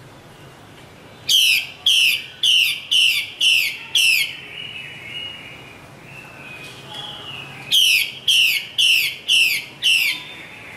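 Female Chinese hwamei giving its harsh 'xùy' calls: two series of falling, rasping notes about two a second, six in the first and five in the second, with softer thin whistled notes in the gap between them.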